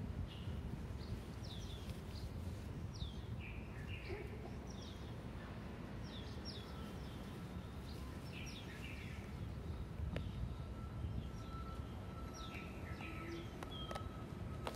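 Small birds chirping, many short falling calls scattered throughout, over a steady low background noise, with a faint steady tone through the second half.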